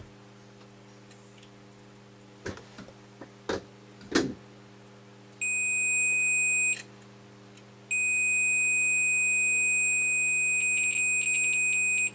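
Multimeter continuity beeper sounding a steady high-pitched tone as its probe tips make contact across a few turns of a burnt wire-wound resistor. It beeps briefly once, then holds a long tone that stutters near the end as the contact flickers. The beep signals a low resistance, about 3.8 ohms. A few small clicks of the probe tips come first.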